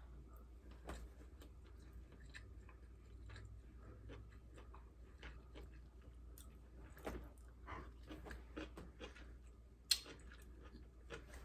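A person quietly chewing food close to the microphone: faint, scattered mouth clicks and smacks, with one sharper click about ten seconds in.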